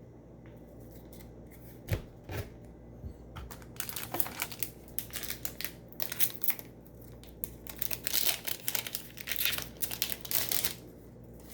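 A trading-card booster pack wrapper being torn open and crinkled by hand. A few light taps come first, then a dense stretch of crackling and crinkling from about four seconds in.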